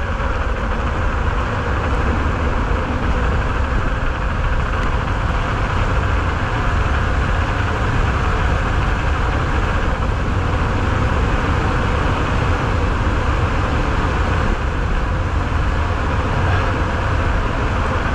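Wind rushing over a helmet-mounted action camera's microphone, with mountain bike tyres running on tarmac, as the bike goes fast down a country lane: a loud, steady rush with deep buffeting underneath.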